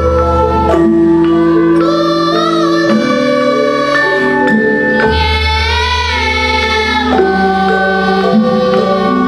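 Children's choir singing a Javanese-language choral song in held notes, several voice parts together, over an accompaniment with a deep bass note that drops out about a second in and returns about halfway through.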